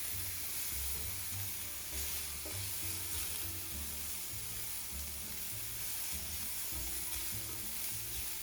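Onions sautéed with garam masala, salt and coriander leaves sizzling steadily in hot oil in a frying pan.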